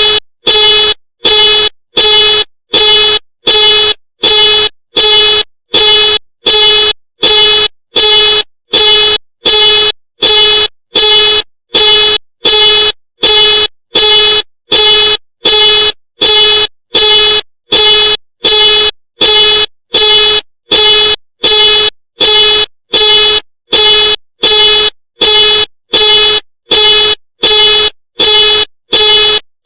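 Ford car alarm sounding the car's horn in a steady on-off pattern, about three loud blasts every two seconds, each the same length and pitch and cut off sharply.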